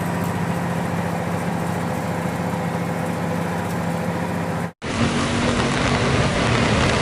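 Steady vehicle engine hum with a constant rain-like hiss; about five seconds in the sound cuts abruptly to heavier rain over a low engine rumble.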